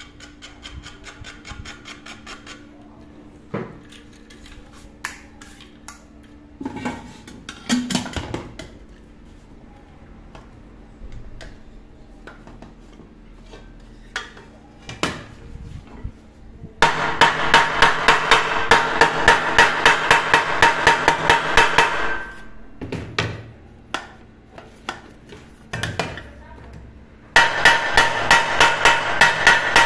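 Quick, even hammer taps on a pressure cooker's metal body, about three a second, each one ringing the pot. They come in two runs, the second starting near the end, after scattered lighter knocks and clinks. The tapping reshapes the swollen pot so the lid lines up again.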